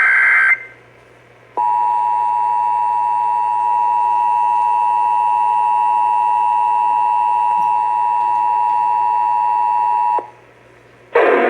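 Emergency Alert System broadcast: a SAME header data burst, a warbling digital screech, ends about half a second in. After about a second's gap, the EAS two-tone attention signal (853 and 960 Hz together) sounds steadily for about eight and a half seconds, over a steady low hum. A siren-like sound cuts in just at the very end.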